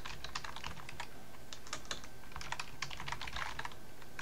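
Typing on a computer keyboard: a quick, irregular run of key clicks with brief pauses.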